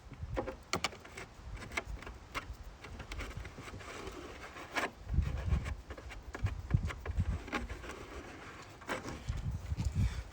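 Plastic 5-gallon bucket and feeder parts being handled and worked: irregular clicks and knocks with bouts of low thumping.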